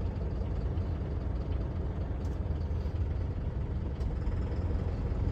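Light delivery truck's diesel engine running at low revs while the truck is manoeuvred into reverse, a steady low rumble with a couple of faint clicks.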